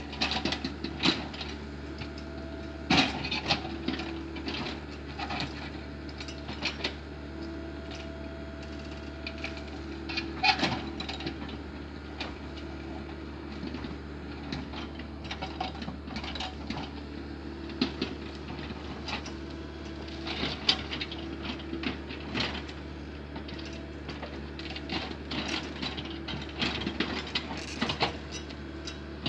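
Komatsu hydraulic excavator's diesel engine running steadily while its bucket digs and scrapes through soil and roots, with frequent sharp knocks and clatters. About seven seconds in, a short steady whine rises over the engine for a couple of seconds.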